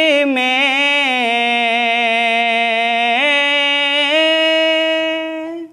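A man's unaccompanied solo voice singing a noha (Shia lament), holding one long drawn-out note. The note steps up in pitch about three seconds in and again about four seconds in, then dies away near the end.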